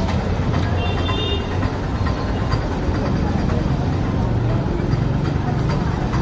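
Busy street traffic noise: a steady low rumble of vehicle engines, with a brief high-pitched beep about a second in.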